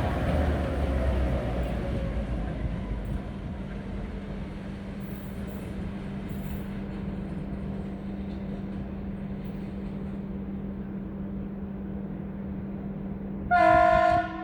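EMD G16 diesel-electric locomotive's two-stroke V16 diesel settling after a hard start, then running steadily at idle. Near the end the locomotive's horn sounds one short blast of about a second.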